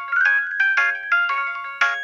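A Samsung SGH-D600 mobile phone playing one of its pre-downloaded polyphonic ringtones: a quick melody of short, decaying notes, about five a second.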